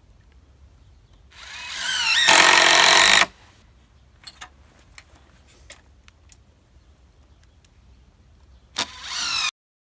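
Cordless drill speeding up with a rising whine and driving a 3-inch screw into rough-sawn pine 2x6 boards, running loud for about a second before stopping. A few light clicks follow, then a click and a second short spin-up near the end.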